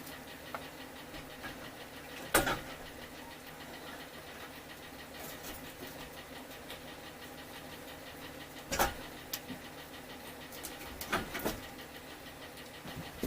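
Several sharp metallic knocks and clanks from motorcycle parts being handled and fitted while the front forks go back on the frame, over a steady background hum. The loudest knock comes a couple of seconds in, with more about two-thirds of the way through.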